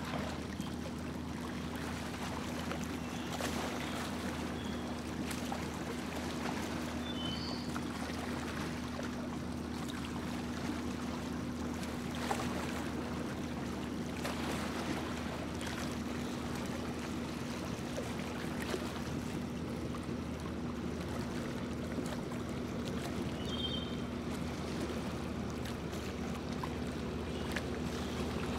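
A boat's motor running at a steady drone under the rush and splash of water along the hull as it cruises across a lake. A few short high chirps sound about seven seconds in and again near the end.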